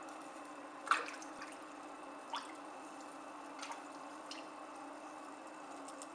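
Steady low hum of a running aquarium with four short water drips or plops on top, the first, about a second in, the loudest.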